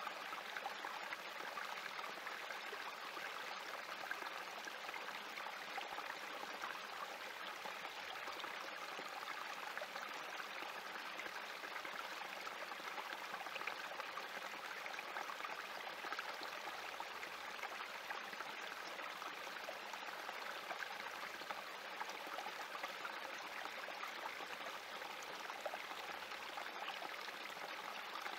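Small spring creek trickling over rocks: a steady babble of running water.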